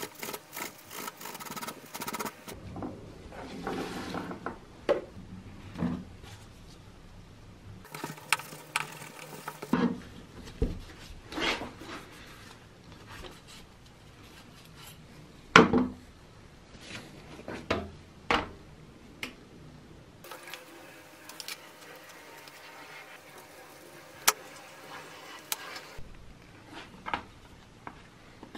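Gloved hands handling the drill's metal housing parts on a wooden bench: scattered clicks, taps and knocks of metal parts being turned over and set down, the loudest a sharp knock about halfway through.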